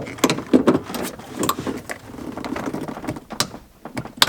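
Irregular clicks, knocks and rattling of hand tools and metal parts being worked on, with rustling in between.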